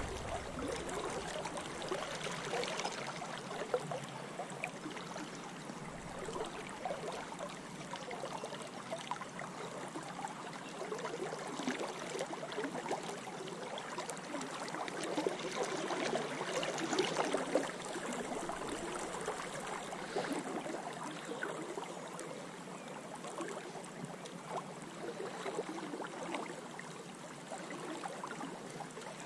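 A spate river running high after heavy rain, its water rushing and gurgling around the legs of a wading angler, steady with small swells in level now and then.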